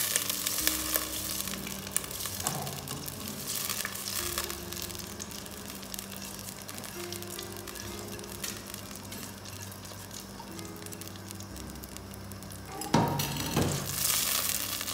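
Seasoned water bubbling and crackling at a rolling boil in a steel pot as washed rice is poured in. About 13 seconds in, a spoon stirs and scrapes through the rice against the pot.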